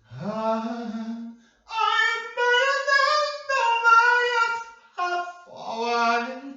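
A lone voice singing unaccompanied in a small room, long held notes in several phrases with short breaths between them, the pitch stepping up partway through.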